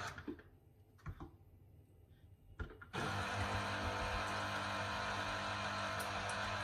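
Electric citrus juicer's motor stops, leaving a few light knocks, then starts again about three seconds in and runs with a steady hum as fruit is pressed onto the spinning reamer.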